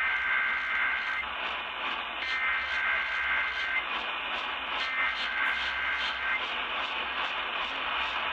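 Emergency Alert System SAME header: three bursts of two-tone digital data, each a little over a second long with about a second's gap between them. They come through AM radio reception with a steady static hiss underneath.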